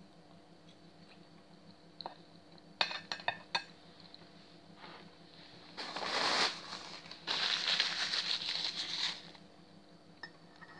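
A few sharp clicks of a fork against a plate, then, a little past halfway, about three seconds of loud rustling noise in two stretches.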